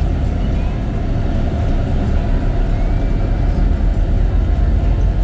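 Steady low engine and road rumble of a moving tour vehicle, heard from inside the cabin.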